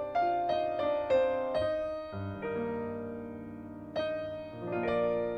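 Piano music: a run of ringing notes that each fade away, a chord held from about two seconds in, then fresh notes again near four seconds.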